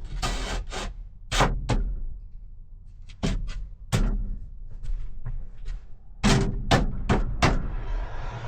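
Cut wooden shelf boards being handled and fitted, giving a series of sharp wooden knocks and thuds. The knocks come irregularly, with several in quick succession near the end. A steady hiss begins just before the end.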